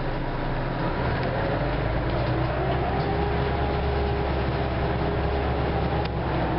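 Orion V diesel bus engine and drivetrain pulling the bus away, heard from inside the cabin: a steady deep drone that grows heavier about a second in, with a whine rising in pitch as the bus gathers speed.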